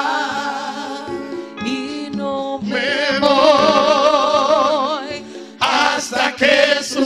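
Slow Spanish-language worship song: a voice sings long held notes with vibrato over steady sustained chords, with a few short knocks near the end.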